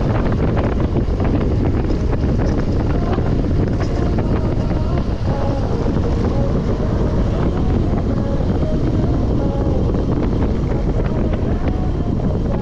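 Steady wind rumble buffeting an action camera's microphone while cycling.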